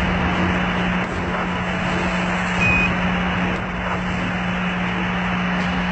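Steady radio static hiss with a constant low hum, the sound of an open space-to-ground radio channel, broken once by a short high beep about two and a half seconds in.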